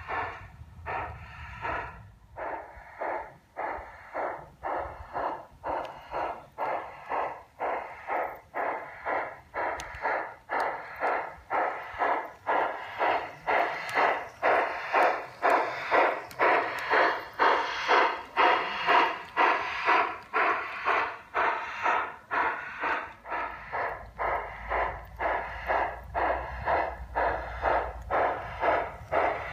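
Steady chuffing of a G-scale model Mallet steam locomotive working slowly, about two beats a second and loudest around the middle as the engine comes close. A low rumble runs under the beats in the last few seconds.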